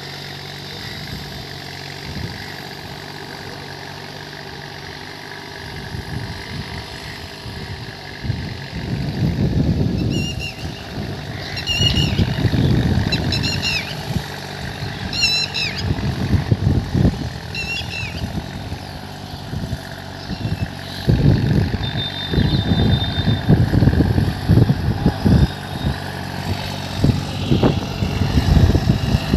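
Deutz-Fahr Agrolux 50 tractor's diesel engine running steadily under load as it pulls a tillage implement through the field. From about a third of the way in it grows louder in uneven low surges as it comes nearer.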